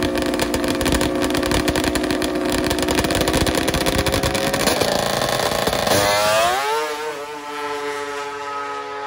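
A drag racing machine's engine held at steady high revs under full throttle. About six seconds in, the throttle is shut, the pitch falls away and the sound eases off.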